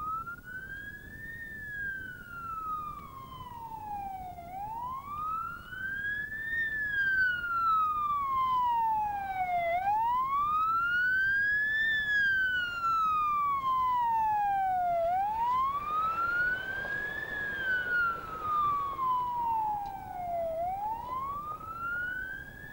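Wailing siren on a Mitsubishi Pajero with a roof light bar, the pitch sweeping up quickly and falling away more slowly about every five seconds. It grows louder in the middle as the vehicle passes close, then fades as it drives away.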